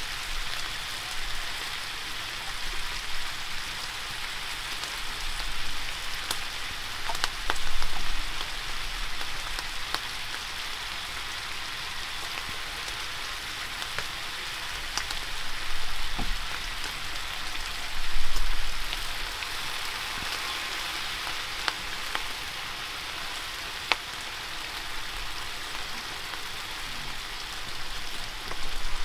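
Slices of pork sizzling in a metal wok: a steady frying hiss with scattered small pops and crackles, and a couple of dull bumps along the way.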